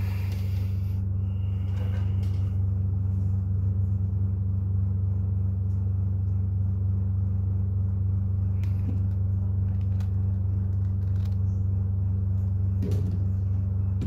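A steady low hum with no change in pitch or level, and a few faint clicks and taps on top.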